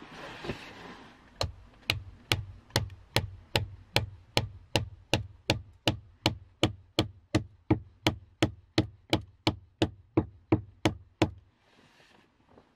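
An axe striking wood in a steady run of sharp knocks, about two and a half a second, starting about a second in and stopping shortly before the end.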